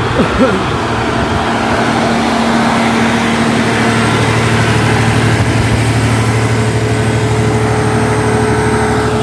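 Diesel generator set, said to be probably a 125 kVA unit, running with a steady low engine hum that holds even throughout.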